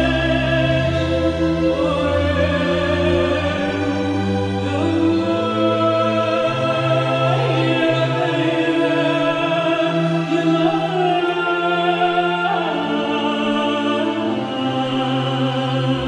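Slow classical music: sustained orchestral notes with an operatic singing voice, the notes held long and changing every second or two.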